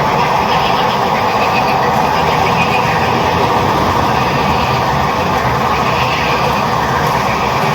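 A chorus of many frogs calling at once, a dense, steady din of overlapping croaks.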